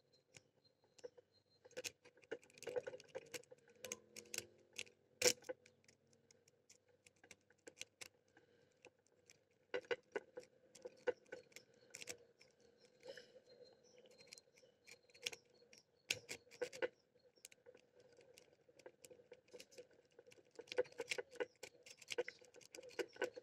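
Lock pick and tension wrench working the pin stack of an old Titan padlock, giving faint, irregular small metallic clicks and scrapes in clusters; the pins do not hold and no full set is gained.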